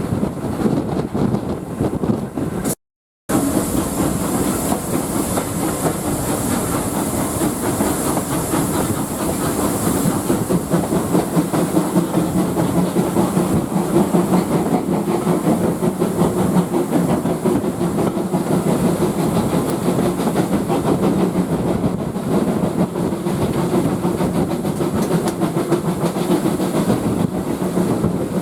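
Steam train running along the line, with steady wheel clatter on the rails and a hiss of steam. The sound drops out completely for a moment a little under three seconds in.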